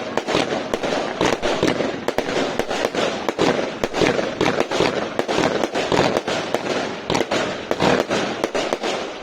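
Fireworks going off in a dense, continuous barrage: many sharp bangs and crackles a second, overlapping without a pause.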